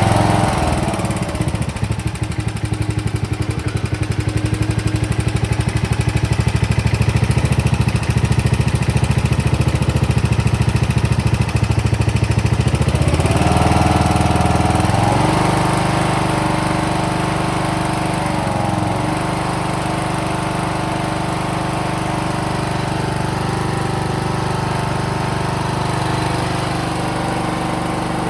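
A freshly rebuilt 17.5 hp Briggs and Stratton small engine running on its first start after the rebuild. Its engine speed shifts about halfway through, dips briefly a few seconds later, then settles into steady running.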